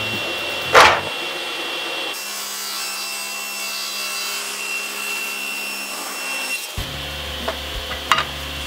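SawStop table saw running, with a loud, short burst as the blade cuts through a poplar strip about a second in, then the steady whir of the spinning blade. A few sharp knocks of wood come near the end.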